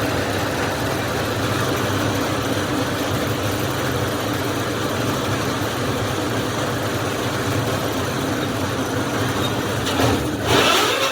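Borewell drilling rig running steadily: an engine hum under a constant mechanical roar, with a brief louder rush near the end.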